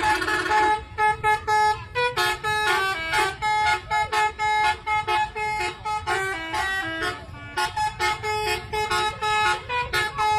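Bus 'telolet' horn, a multi-tone musical air horn, playing a quick tune of short notes that jump between pitches, over a steady low rumble.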